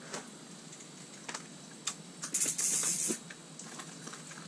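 Handling noises from an ice angler landing a crappie: a few light clicks and knocks, then a brief loud rustle, like fabric brushing, for under a second about halfway through.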